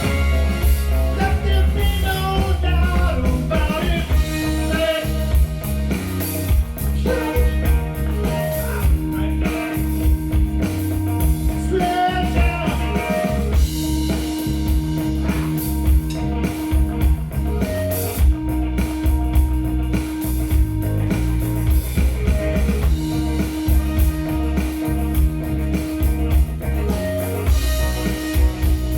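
Instrumental break of a rock-soul song: bass and drum groove with guitar, and long held notes that come back about every four and a half seconds.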